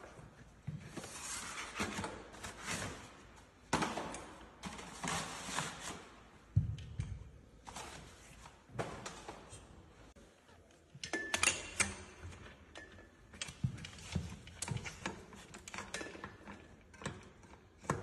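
Foam and plastic packaging being rustled and pulled off a bicycle frame, with knocks and clicks of parts handled and set down on the floor. A brief squeak comes about 11 seconds in.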